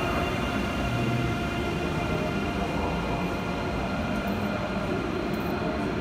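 ICE 3 high-speed electric train departing and moving away along the platform: a steady low rumble with a constant electric whine from the train.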